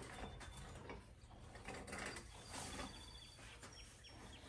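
Metal chains of a wire hanging basket clinking and rattling faintly as they are pulled out from under a potted fern, with small scattered clicks and a few brief high metallic rings.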